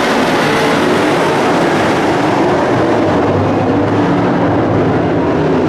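Pickup race trucks' engines running hard at speed, with several engine notes overlapping and wavering in pitch.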